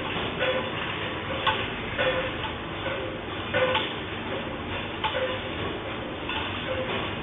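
Steady rumbling rattle with short clinks repeating about twice a second, like loose objects shaking during an earthquake, heard through thin, low-quality audio.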